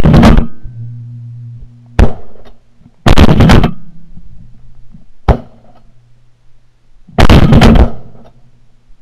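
Shotgun fire from two hunters shooting at pigeons: five loud blasts roughly every one to two seconds. Three are long and very loud, and two, about two seconds in and about five seconds in, are shorter and sharper.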